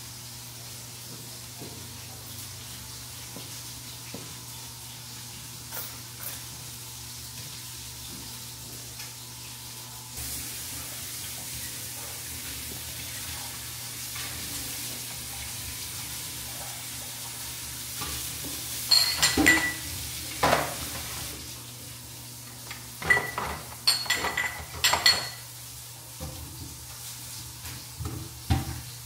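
Washing up at a kitchen sink: tap water runs for several seconds, and dishes, pots and cutlery clink and ring against each other in two bursts over a steady background hiss.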